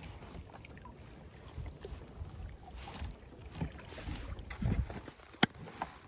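Kayak paddle strokes, the blades dipping and splashing in shallow creek water over a low rumble. The strokes grow louder toward the end, with one sharp knock about five and a half seconds in.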